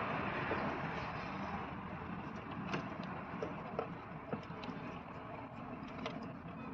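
Light, scattered clicks and taps of wires and a plastic fuse socket being handled and fitted together by hand, over steady background noise.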